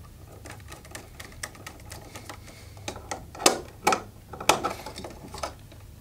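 Scattered clicks and knocks as a three-way light switch and its wires are handled against a metal electrical box, with a few louder knocks in the middle.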